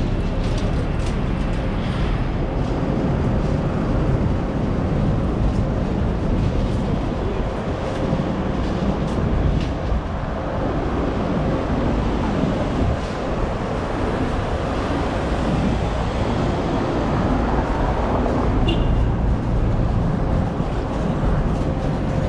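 Steady low rumble of vehicle noise, with scattered faint clicks and a short high beep about three-quarters of the way through.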